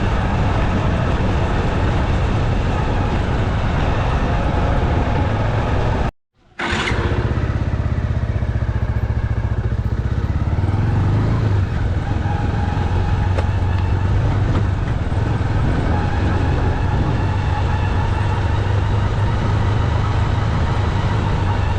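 Motorcycle engine running while riding, with wind rush, cut off for a split second about six seconds in. After the cut the engine note falls as the bike slows, then holds steady.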